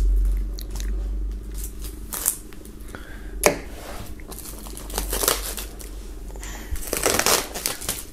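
Plastic shrink-wrap film slit with a knife and peeled off a boxed hardcover book, crinkling and rustling in irregular bursts, with one sharp crackle about three and a half seconds in.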